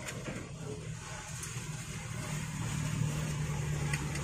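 A steady low mechanical hum, like an engine running nearby, with a few faint clicks from small metal parts being handled.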